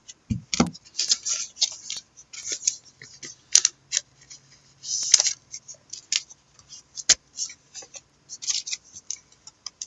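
Trading cards and their plastic wrapping being handled at close range: scattered small clicks, crinkles and rustles at an uneven pace.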